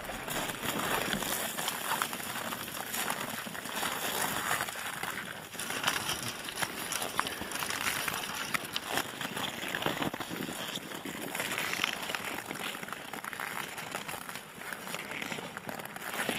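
Cows moving about in packed snow and drinking at an ice hole: a steady dense crunching and crackling of hooves and bodies in the snow.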